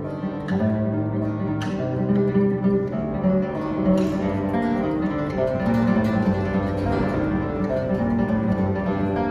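Solo classical guitar played fingerstyle: a melody of ringing plucked notes over bass notes, with a few sharply plucked chords in the first four seconds.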